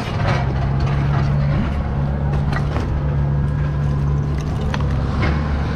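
A motor vehicle engine running steadily at idle, a low even drone, with a few faint knocks over it.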